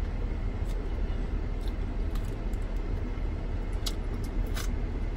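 Steady low rumble and hiss heard inside a parked minivan's cabin, with a few short clicks as someone chews fries.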